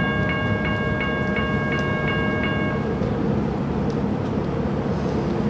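Railroad crossing bell ringing about three times a second, then stopping about three seconds in, over steady street noise.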